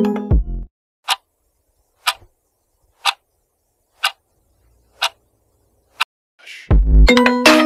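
Clock-tick sound effect marking a rest interval, one tick a second, six in all. Electronic music cuts off about half a second in and, after a short rising whoosh, starts again near the end.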